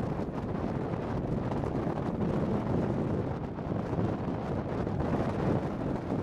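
Wind buffeting the microphone over the low, steady rumble of a distant freight train hauled by two diesel locomotives.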